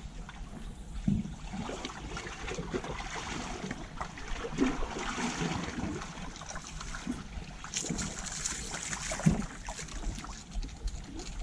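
Seawater lapping and splashing against shore rocks, with irregular splashes and knocks and a rushing hiss that swells about halfway through and again near the end.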